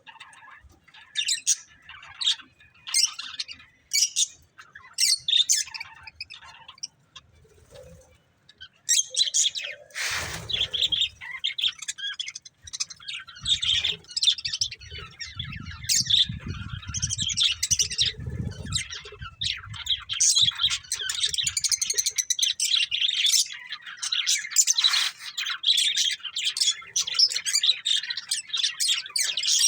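Pet budgerigars chirping: scattered short chirps at first, building into a continuous chattering warble about two-thirds of the way in. A brief thump about a third of the way in and a low rumble for several seconds in the middle sit underneath.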